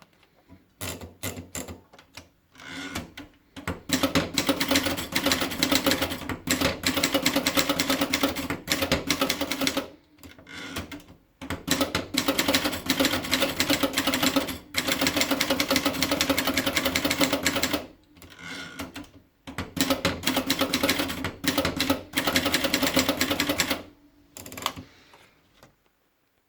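Remington Envoy 3 manual portable typewriter being typed on: fast runs of key strikes, each a few seconds long, separated by short pauses.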